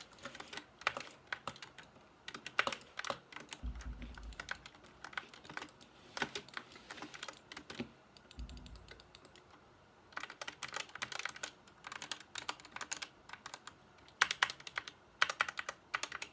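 Typing on an SK61 mechanical keyboard with linear red switches: bursts of quick key clacks with short pauses between them. Twice there is a brief low thud.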